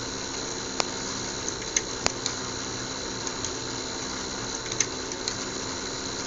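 Small fischertechnik electric motors running with a steady whir and hum, with scattered light clicks throughout.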